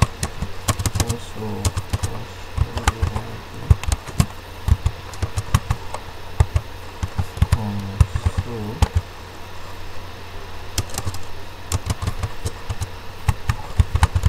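Computer keyboard keys clicking in irregular runs of typing, some keystrokes louder than others, over a steady low hum.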